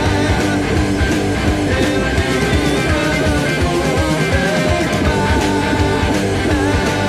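Electric guitar, a black single-cutaway solid-body, played along to a rock backing track of drums and bass with a steady beat.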